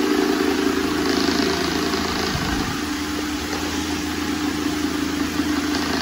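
Cadence desk fan running with a swapped-in propeller: a steady motor hum with air rushing off the blades, and a brief low thump about halfway through.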